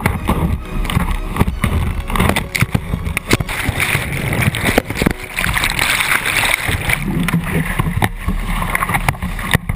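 Whitewater crashing and churning around a kayak running a steep creek rapid, with many sharp knocks and splashes of water, paddle and hull throughout.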